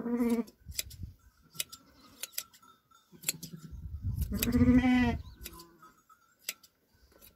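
A sheep bleating during hand shearing: a short bleat at the start and a longer, louder one about four seconds in. Between them come scattered sharp snips of the hand shears cutting fleece.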